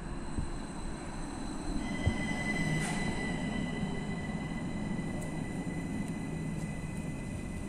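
Stadler Citylink tram-train pulling in and braking to a stop past the platform, its running gear and motors humming steadily. A steady high-pitched squeal from the train starts about two seconds in and holds, with a sharp click near the start of it.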